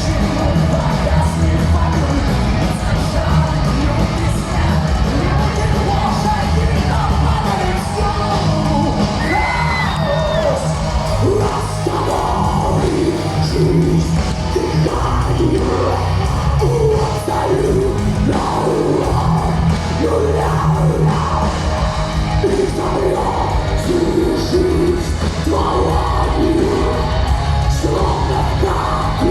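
Power metal song played by a full rock band, with guitars, bass and drums under a sung vocal line.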